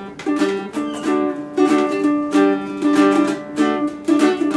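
Ukulele strummed in a steady rhythm, playing chords as the instrumental introduction to a song.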